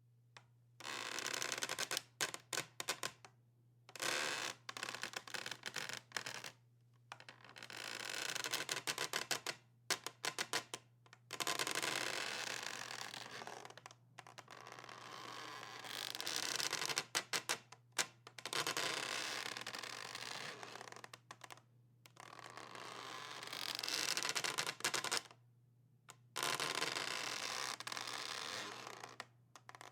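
Creaking wood: a long series of drawn-out, grating creaks of one to four seconds each, made of rapid stick-slip clicks and separated by short pauses.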